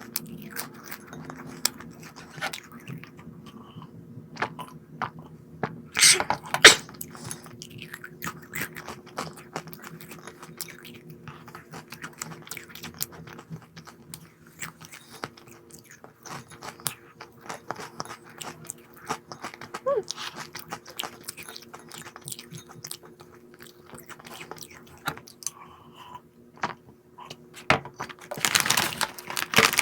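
Close-up crunching and chewing of a crisp snack, with many sharp crunches, two loud ones about six seconds in. Near the end a loud crinkling starts, like snack packaging being handled.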